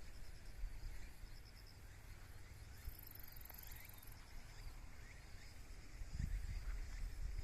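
Insects chirping in short, pulsed trills, with a higher buzzing trill about three seconds in, over a low, gusty rumble that grows louder near the end.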